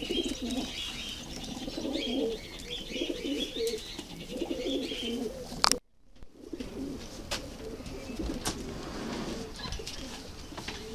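Racing pigeons cooing in their loft, a low warbling coo going on and on, with higher chirping over it for the first half. The sound breaks off with a click for about half a second near the middle.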